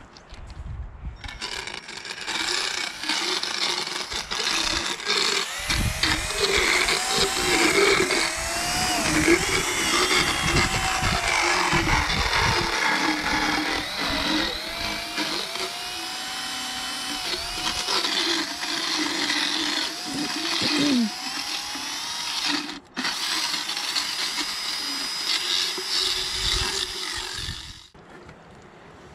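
Motorized equine dental float (power float) grinding against a horse's teeth. Its whine rises and falls in pitch as it bears on the teeth, filing down the sharp edges on the molars. It cuts out briefly about 23 seconds in and stops near the end.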